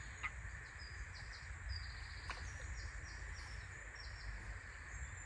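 A small bird singing a run of short, high, falling notes over a steady low outdoor rumble, with a faint click just after the start.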